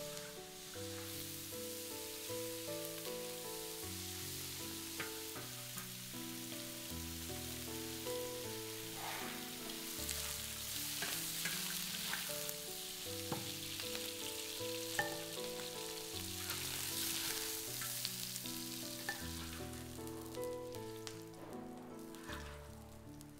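Chunks of pork rib sizzling in hot oil in a large iron wok, stirred with a wooden spatula that scrapes and knocks against the pan now and then. The sizzle dies down near the end.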